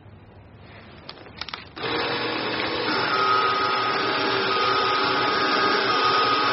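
Small desktop paper shredder: a few clicks, then about two seconds in its motor starts and runs steadily as it cuts a card into strips, a steady whine in it from about a second later.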